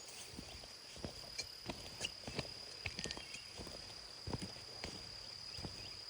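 Footfalls on the ground, irregular knocks roughly every half second, with a steady high-pitched tone underneath throughout.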